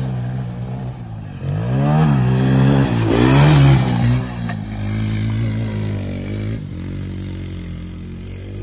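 Honda TRX90 youth quad's small single-cylinder four-stroke engine revving up and dropping back twice as it is ridden over the jumps, loudest about three and a half seconds in, then running more steadily at lower revs.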